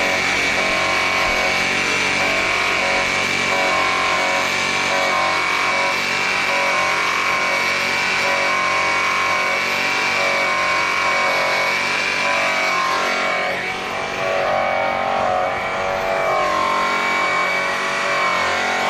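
DeWalt variable-speed rotary polisher running steadily with a buffing wheel pressed against a chrome car wheel, a constant high-pitched motor whine, dipping briefly about two-thirds of the way through.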